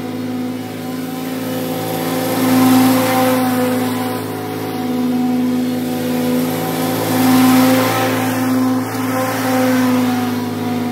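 Commercial walk-behind lawn mower's engine running steadily under load while mowing, swelling louder several times as it comes close on each pass.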